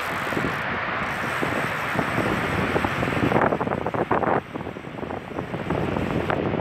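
Wind buffeting the microphone on an open boat, loud and gusty over a steady rushing noise, easing briefly about four and a half seconds in.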